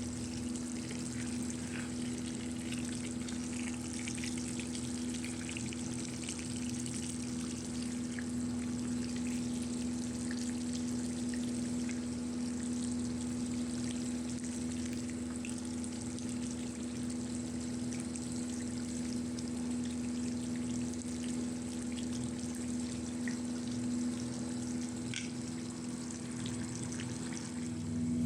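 A steady low hum with faint, scattered crackling and bubbling over it: a pot of chicken and pumpkin simmering on the stove.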